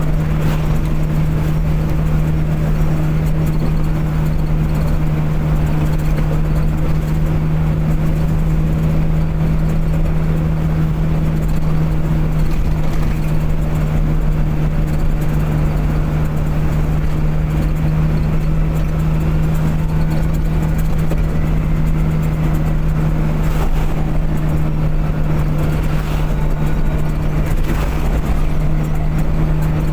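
Vehicle engine running at a constant speed with a steady unchanging hum, over continuous road rumble, as when cruising.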